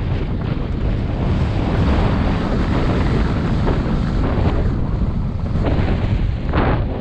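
Wind rushing over a GoPro's microphone on a downhill mountain bike at speed, mixed with tyre noise on loose dry gravel. A few knocks from the bike rattling over bumps come in the last few seconds.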